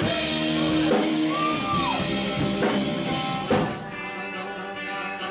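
Country-rock band launching into a song, sustained instrument notes with a bent note early on over a steady band sound.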